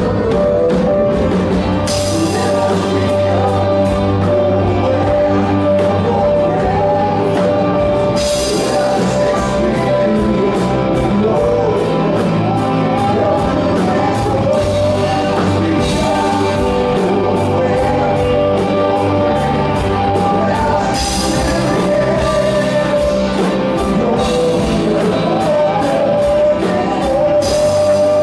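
Live band music: an electric keyboard played with a drum kit, with cymbal washes every few seconds.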